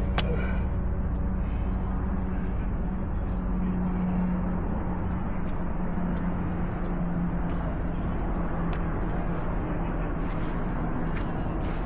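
Steady outdoor city ambience: a constant low hum under a haze of distant traffic noise, with a few faint clicks.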